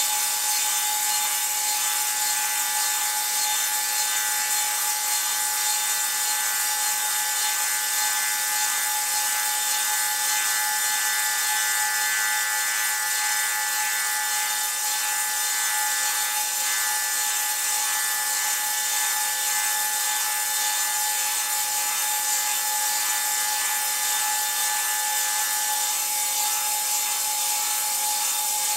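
Table saw with a Tenonizer TC 300 tenon cutter attachment running, the saw blade cutting a tenon on a turning log: a steady sawing rasp under a constant pitched whine.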